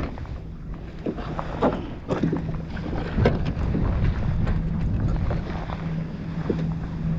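Wind buffeting the microphone over open water, with scattered knocks and taps as a freshly caught tautog is unhooked and handled in a kayak. A low steady hum comes in about two seconds in.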